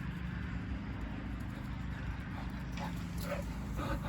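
A dog running to fetch a thrown toy: quick paw falls and breathing, with a few short sounds in the second half, over a steady low hum.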